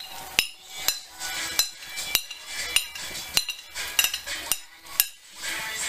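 A utensil clinking sharply against a glass bowl and a frying pan, about twice a second, as saltfish is scraped out of the bowl and stirred through okra and vegetables.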